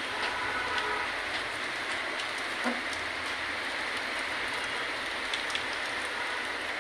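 Heavy rain falling: a steady hiss with scattered drops ticking.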